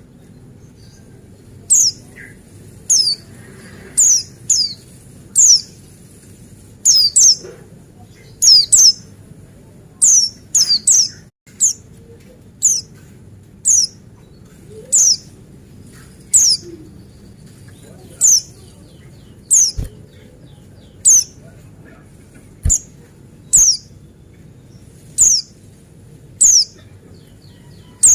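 Pleci buxtoni white-eye calling: short, thin, high calls, each a quick downward slur, repeated roughly once a second and sometimes doubled in quick pairs.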